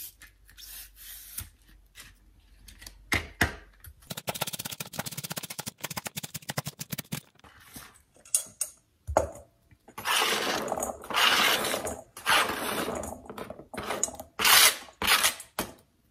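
Chef's knife chopping celery on a thin plastic cutting mat: scattered cuts, then a fast, even run of chops. Near the end come loud bursts of scraping and rustling as the flexible mat is lifted and the chopped celery is slid off it into a stainless steel bowl.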